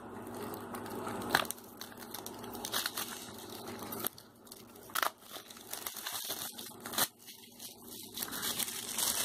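Rustling and crinkling as a plastic Blu-ray case is handled and opened, with a few sharp plastic clicks.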